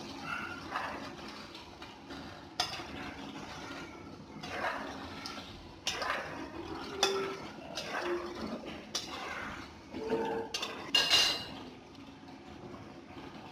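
Metal spoon stirring chicken and potatoes in a thin gravy in a non-stick frying pan: irregular clinks and scrapes of the spoon against the pan, with the liquid sloshing and the loudest clatter about eleven seconds in.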